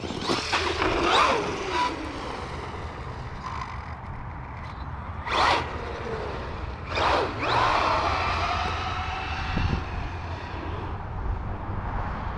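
Losi Lasernut RC buggy's electric motor whining up and down in pitch as the throttle is worked, with two short rushing bursts of noise about five and seven seconds in.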